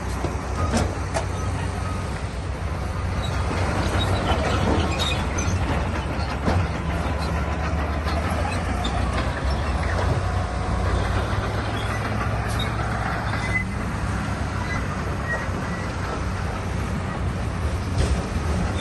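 Heavy diesel earthmoving machinery running steadily under load, with scattered metallic clanks and short squeals, typical of a crawler bulldozer working its tracks and blade through rock.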